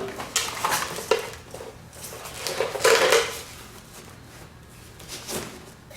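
A new air impact wrench and its packaging being handled as it is taken out of the box: irregular clinks and rustles of metal and packing, loudest about half a second in and about three seconds in, with a short knock near the end.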